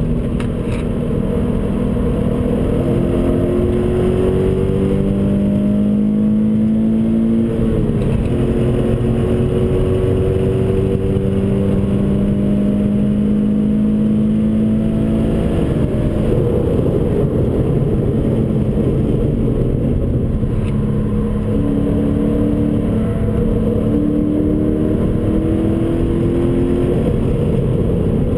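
Toyota 86's 2.0-litre flat-four boxer engine heard from inside the cabin, pulling hard on a circuit lap: its note climbs in long rising sweeps and drops sharply at gear changes. For a stretch in the middle it eases off, leaving a steady rumble of road and wind noise.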